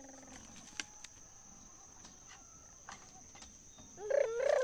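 A turkey gobbling, a quick run of warbling calls that starts loud near the end, over a steady high insect drone and a few faint clicks.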